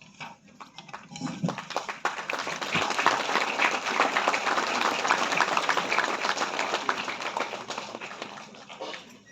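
Audience applauding in a hall: the clapping builds up over the first two seconds, holds steady, then dies away near the end.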